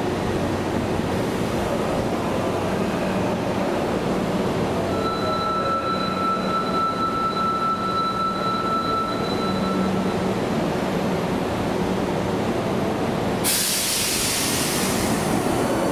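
Hankyu 8300-series commuter train standing at a subway platform, with a steady hum and rumble. A steady high tone sounds for a few seconds midway, and a sudden loud hiss starts near the end.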